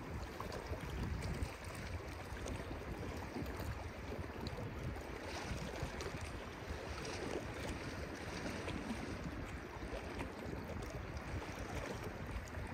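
Sea at a big spring high tide: waves washing and churning in a steady rush of water, with low wind rumble on the microphone.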